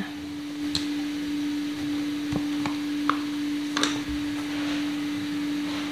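A few light clicks and taps as cooking oil is poured from a bottle into an aluminium cake pan, over a steady low hum.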